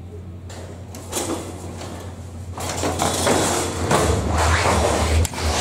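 Scuffing footsteps and rustling on steep concrete stairs, with handling noise from a jostled handheld camera. It grows much louder about two and a half seconds in.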